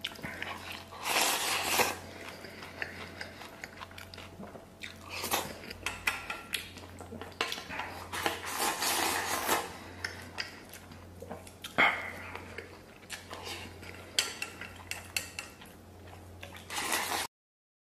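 Wooden chopsticks scraping and clicking against a stainless-steel bowl as rice and beef tendon are shovelled into the mouth, with chewing. The sound stops suddenly near the end.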